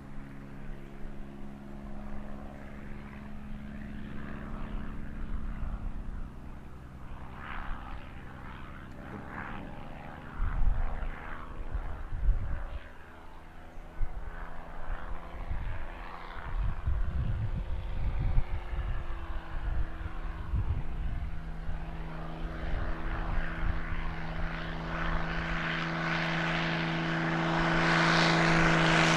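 Dornier Do 27's six-cylinder piston engine and propeller droning steadily across the field on the takeoff run, growing louder over the last few seconds as the aircraft lifts off and heads toward the microphone. A few low rumbles of wind on the microphone come partway through.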